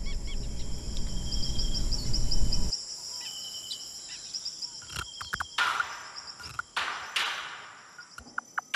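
Forest ambience: a steady high insect drone with a bird's quick repeated chirps. A low rumble underneath stops suddenly a little under three seconds in, and a few short hissing bursts follow in the second half.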